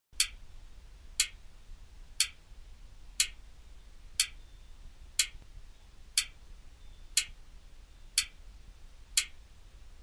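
Wall clock ticking once a second: ten sharp, evenly spaced ticks of the second hand.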